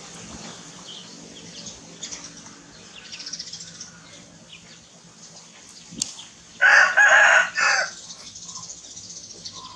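A rooster crows once, about seven seconds in, a single crow of just over a second, over faint outdoor background with small bird chirps.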